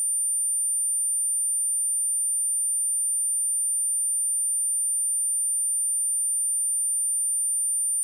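A steady, high-pitched 9175 Hz sine-wave test tone, a single pure tone held at constant level, used to test speakers and to shake water and dust out of them.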